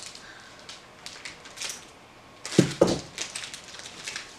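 Plastic snack wrapper of a fruit strip crinkling as it is cut with scissors and pulled open by hand. Two loud thumps come close together about two and a half seconds in.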